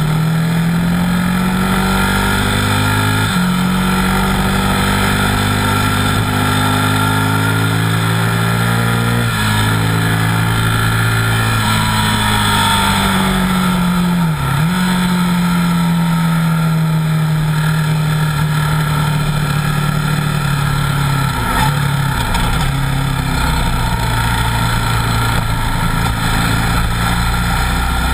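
Buell 1125R's 1125 cc V-twin engine pulling hard, its pitch climbing and then dropping sharply at two upshifts in the first ten seconds. It eases off around midway, then runs on at a fairly steady speed with a couple of brief dips. Wind rushes over the camera the whole time.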